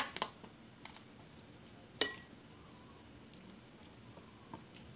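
A spoon clinking against a glass mixing bowl as potato salad is stirred: one sharp clink about two seconds in, with a few fainter taps around it.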